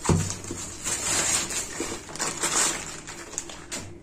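Plastic courier packaging rustling and crinkling as it is handled, with small irregular crackles and clicks.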